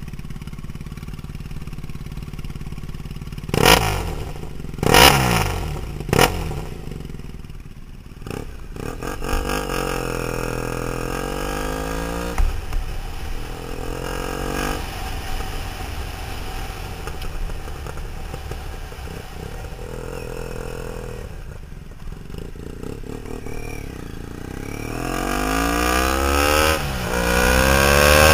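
Triumph Thruxton 900's carbureted air-cooled parallel twin through a D&D 2-into-1 exhaust, with a K&N filter and de-snorkeled airbox. It idles, is blipped sharply three times a few seconds in, then pulls away and runs up through the gears. It holds a steady cruise, then accelerates hard near the end.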